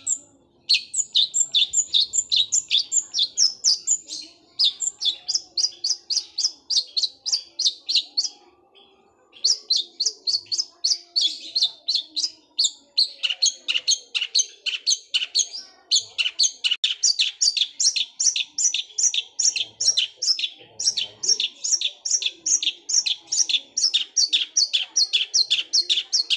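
Long-tailed shrike (cendet) singing a fast, unbroken roll of sharp, sparrow-like chirps, about four notes a second, like a sewing machine running. There is a short break near a third of the way through before the roll resumes.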